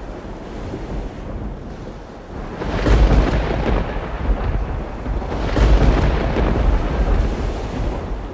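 Wind rumbling on the microphone over surf breaking on a rocky shore, swelling twice, about three and five and a half seconds in.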